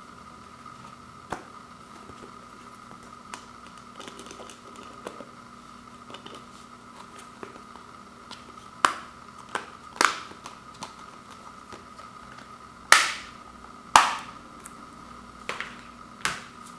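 Plastic Blu-ray case clicking and snapping: a few light clicks, then sharp snaps as the disc is pressed onto the case's centre hub and the case is snapped shut, the two loudest about a second apart near the end.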